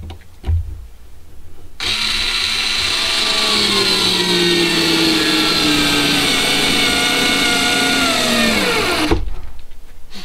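Bauer 4V cordless screwdriver driving a screw into a wooden stud. The motor starts about two seconds in and whines for about seven seconds, its pitch sinking slowly as it labours under the load. Near the end the pitch drops sharply and the motor stops as the screw seats all the way.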